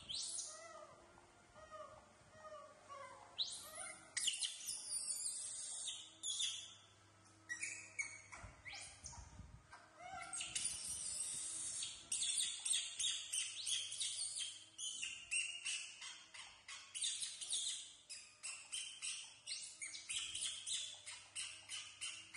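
Young macaques squeaking and chirping in high-pitched calls, a few scattered ones at first, then a dense run of quick repeated calls, about two a second, through the second half.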